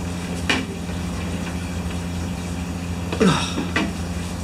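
Steady low electrical hum from a sound system, several low tones held together. There is a short knock about half a second in and a brief noisy sound with a falling tone a little after three seconds.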